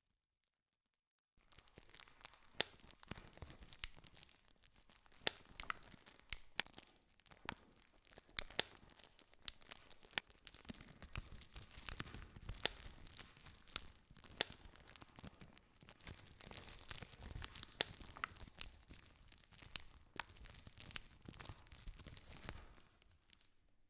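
Wood campfire crackling with frequent sharp pops and snaps. It starts about a second in and cuts off suddenly just before the end.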